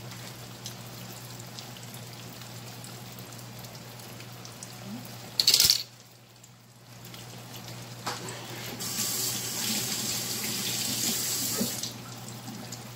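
Fish frying in oil in a skillet, sizzling steadily, with a short loud noise just after five seconds in and a louder stretch of hiss for about three seconds near the end.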